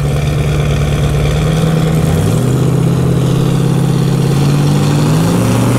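Loud truck engines idling at the drag strip, their note shifting about two seconds in, with one engine's pitch slowly rising near the end.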